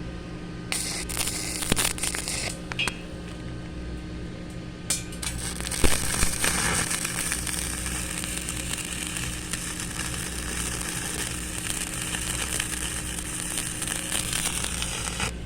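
Electric arc welding: after a few short sputters in the first seconds, the arc settles into a steady crackling hiss for about ten seconds and then cuts off, with a constant electrical hum underneath.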